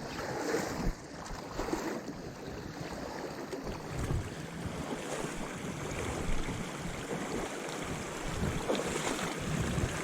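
Steady rush of a flowing mountain trout stream, with wind buffeting the microphone in uneven low rumbles.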